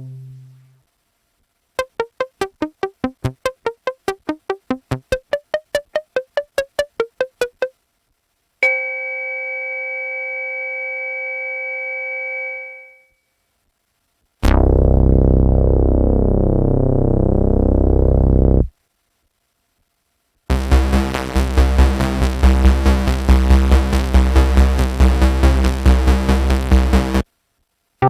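Dave Smith Instruments Mopho monophonic analog synthesizer playing a run of different preset sounds, each separated by a short silence. First comes a fast string of short repeated notes, about four a second. Then a sustained bell-like tone fades out, a loud buzzy bass tone holds for about four seconds, and a dense, rapidly pulsing sound plays near the end.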